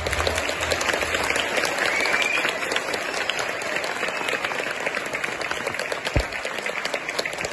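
Crowd applause: many people clapping steadily in a dense patter of hand claps, an ovation at the end of a stage performance.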